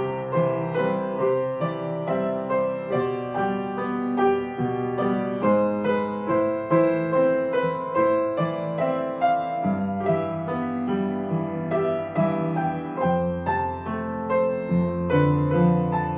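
Soft background piano music, notes played in a steady flowing pattern with chords beneath.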